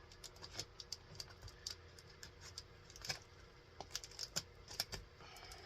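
Faint, irregular light clicks and crackles of hands tearing into and handling a cardboard soda 12-pack.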